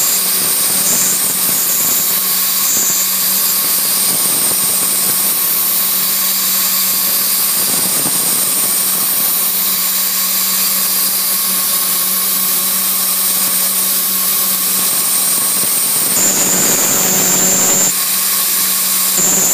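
CNC milling machine's spindle running as a small end mill cuts pockets in a plastic plate: a steady whine over the hiss of cutting. A high-pitched tone comes in for a couple of seconds near the end.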